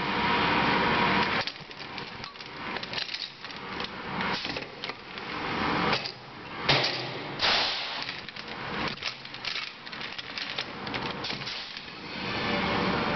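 Air-pot tire chain rebuilding tool at work on heavy tire chains: air hissing at the start and again near the end, with irregular metallic clacks of the tool's jaw and clanking chain links in between, and two louder blasts about halfway through.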